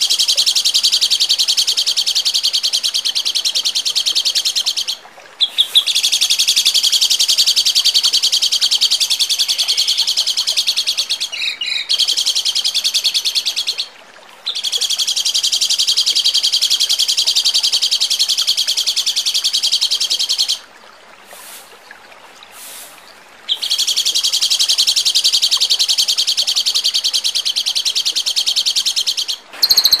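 Recorded songbird song of the rapid-fire 'tembakan' kind used to tutor caged songbirds: long, fast runs of sharp, high notes lasting several seconds each. The runs break off briefly a few times, with one longer lull past the middle.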